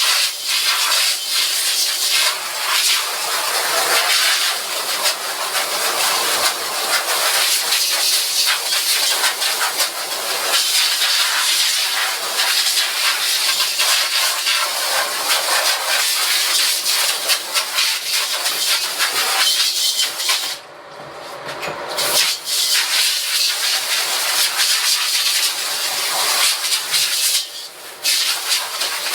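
Mobile pressure washer spraying a steady hissing jet of water, washing out screen-printing screens. The spray stops twice, once for about a second and once briefly near the end.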